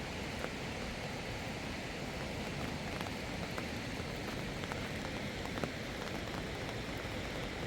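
Steady rain falling, with a few scattered sharp drop ticks.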